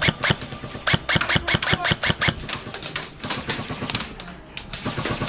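Airsoft guns firing: a rapid, irregular string of sharp cracks and clicks, several a second, densest in the first couple of seconds and thinning out after that.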